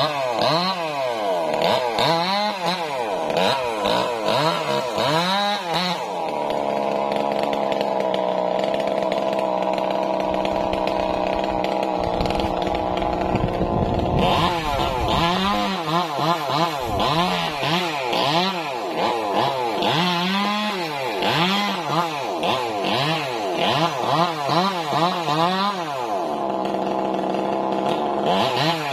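Two-stroke chainsaw running at a cut in a sengon tree trunk. The engine revs up and drops back about once a second, then holds steady at high speed for roughly eight seconds as it works through the wood. After that it goes back to revving up and down.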